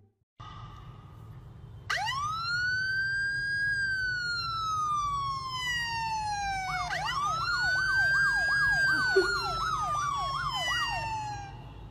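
Emergency-vehicle siren sound played from a smartphone: a wail that rises and slowly falls, then rises again with a fast yelp of about three sweeps a second layered over it.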